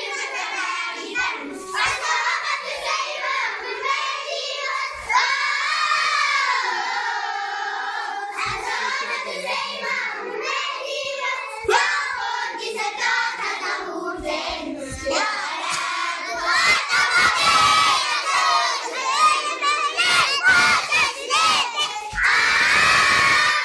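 A group of schoolchildren chanting together loudly in unison, their voices rising and falling in pitch. Near the end they break into louder shouting.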